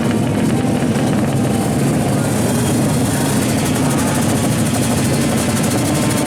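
Drag-racing motorcycle engines running hard at high revs, a steady fast-pulsing buzz with no let-up.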